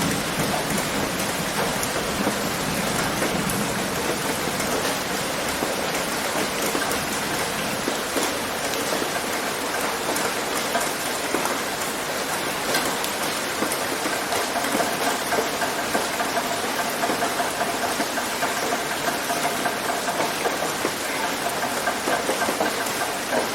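Steady rain pattering on a tin roof, a dense even patter of drops. A faint steady hum comes in about halfway through.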